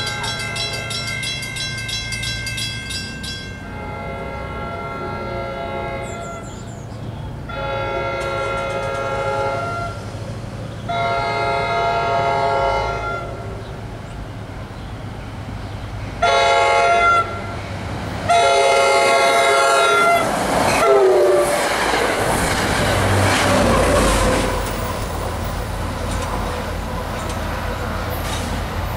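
Multi-chime train horn, a K5LA on a Comet V cab car, sounding a series of long blasts, then a short one and a final long blast as the express approaches at speed. Then the train rushes past with wheel clatter and rumble, the horn's pitch dropping as it goes by, and the rumble of the pushing F40PH-3C diesel locomotive fades as the train recedes.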